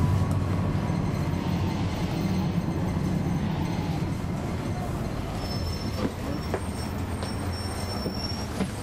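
A 2011 NABI 40-SFW transit bus's Cummins ISL9 inline-six diesel runs with a low rumble that slowly dies away as the bus slows. From about halfway a thin high squeal comes in, with a few light clicks near the end.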